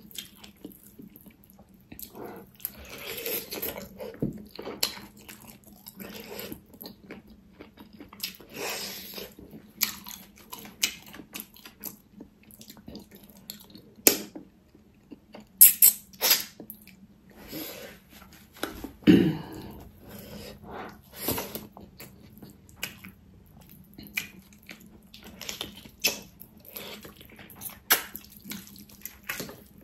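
Close-miked wet chewing and lip-smacking from eating sticky, gelatinous pork trotter with rice by hand: irregular moist clicks and smacks, a few of them sharper and louder.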